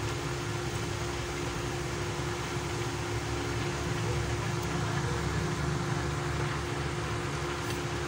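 Steady whir of an electric fan running, with a constant hum in it.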